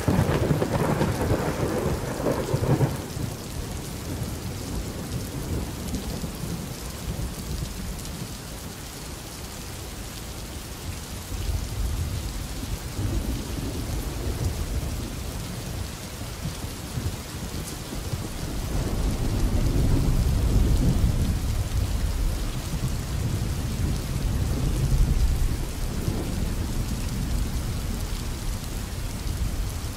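Steady rain with thunder rolling through it: a fuller peal right at the start, then several long low rumbles that swell and fade, loudest about two-thirds of the way in.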